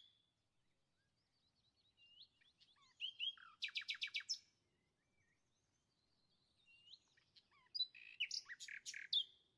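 Faint bird chirps in two short bouts: a quick run of high notes about three seconds in, and another cluster near the end.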